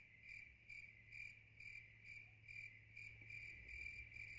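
Crickets chirping faintly: a steady high trill that pulses about two or three times a second.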